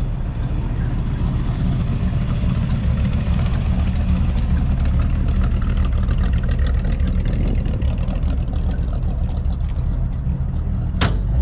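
A car engine idling with a steady low rumble, with a sharp click near the end.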